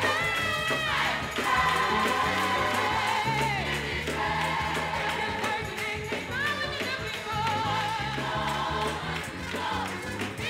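Gospel choir singing with band accompaniment, from a live church recording: held, wavering sung notes over a steady bass line and beat.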